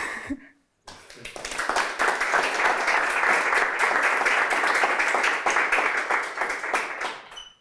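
A small audience clapping, starting about a second in, quickly building to full applause, then tapering off and stopping near the end.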